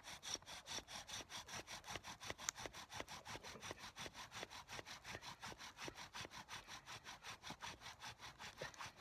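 Bow drill in use: a yucca spindle spun by the bow on a cedar hearth board, grinding in quick, even back-and-forth strokes, about six a second. It is friction drilling to raise an ember, and it stops near the end.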